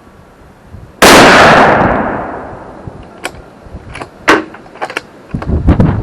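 A single rifle shot from a bolt-action Howa 1500 in 6.5 Creedmoor, a sharp crack about a second in that echoes and fades over about a second. It is followed by a series of sharp metallic clicks and knocks, one louder with a short ring, as the rifle is handled.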